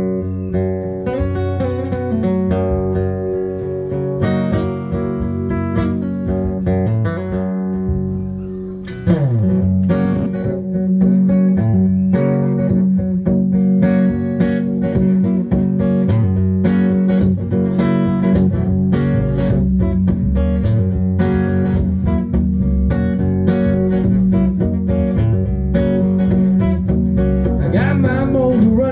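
Acoustic guitar played solo as a song's instrumental intro: lighter playing at first, then steady, louder rhythmic strumming from about nine seconds in.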